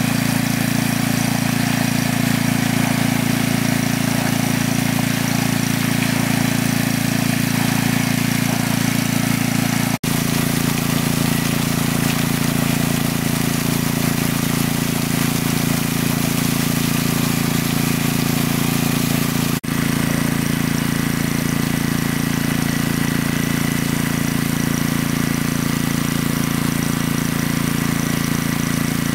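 Engine of a large water pump running steadily, pumping water out of a lake, broken by two momentary dropouts.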